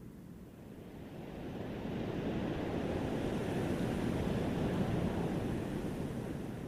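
Ocean surf washing in: a low rush that swells over a couple of seconds and then slowly fades.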